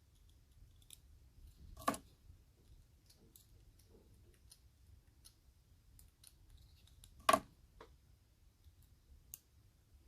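Faint small metal clicks and taps as sliders are worked out of an EVVA 3KS lock core with a tool, with two sharper clicks about two seconds in and about seven seconds in.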